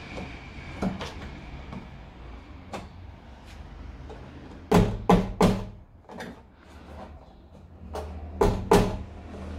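Knocks and clicks of a metal rear licence plate being pressed and handled against a Jeep Renegade's tailgate, with a flat screwdriver scraping and tapping at its edge. There are three loud knocks about five seconds in and two more near the end.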